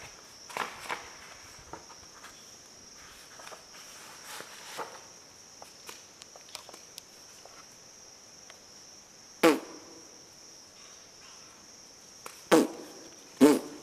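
Insects chirring steadily at a high pitch, with faint scattered ticks. A few short, loud sounds stand out: one about two-thirds of the way in and two more near the end.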